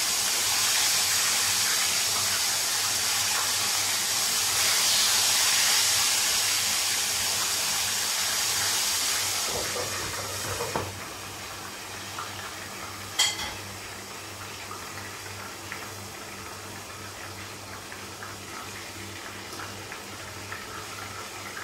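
Chicken pieces sizzling in hot oil in a frying pan, a loud, even spattering hiss. About ten seconds in the sizzle drops to a quieter, muffled hiss as the pan is covered with its lid to stop the oil splattering, and a single sharp metal clink follows a few seconds later.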